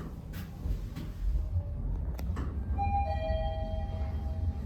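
Mitsubishi machine-room-less rope elevator car travelling down with a low steady hum and a couple of faint clicks. About three seconds in, a soft two-note electronic chime sounds, a higher tone joined by a lower one, both held.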